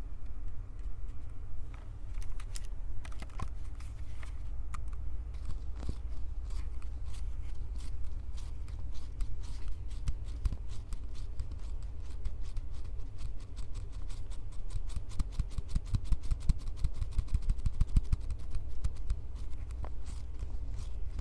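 Hands gripping, squeezing and rubbing a Tascam recorder's microphones up close: dense crackling and tapping over a deep handling rumble, with the taps coming faster in the second half.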